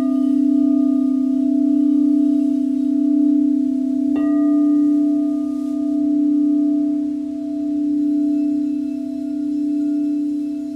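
Frosted quartz crystal singing bowl ringing with a steady, pure low drone whose loudness wavers slowly. It is struck again about four seconds in, adding brighter overtones that ring and fade, and a fainter higher note joins near the end.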